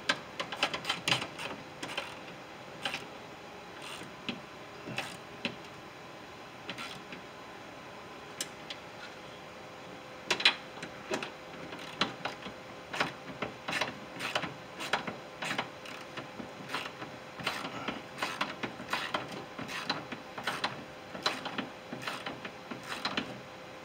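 Ratchet wrench clicking in short irregular runs as the bolts that clamp the window glass into the regulator brackets are tightened, over a faint steady hum.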